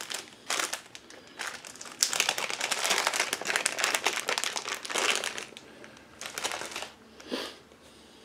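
Small clear plastic parts bag crinkling as it is handled and opened to get out a small threaded plug, loudest in a stretch of about three seconds near the middle, with shorter rustles before and after.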